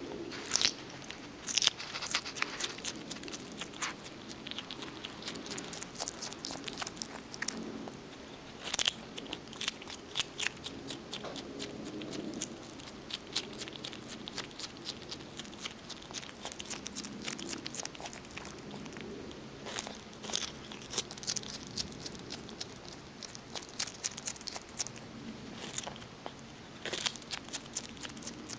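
A skunk gnawing and chewing a raw carrot: sharp, irregular crunches and bites, coming in quick clusters.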